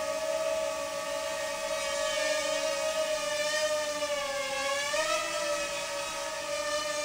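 Parrot Rolling Spider minidrone in flight: the high whine of its small quadcopter motors and propellers, steady in pitch, dipping slightly about four and a half seconds in and rising back about five seconds in.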